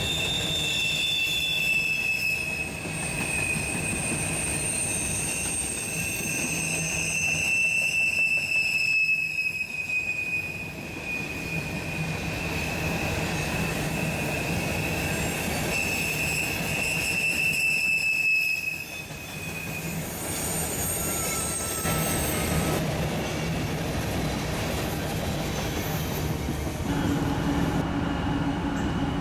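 Train cars rolling past with their wheels squealing on the rails: high, drawn-out tones that waver slightly in pitch over a steady rumble, fading out near the end.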